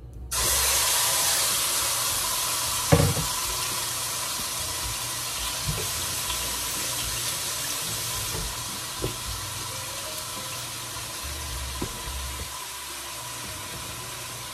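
Seasoned roast meat going into a pot of browned, caramelised sugar and searing: a loud sizzle starts all at once and slowly eases. A sharp knock about three seconds in and a few lighter taps later.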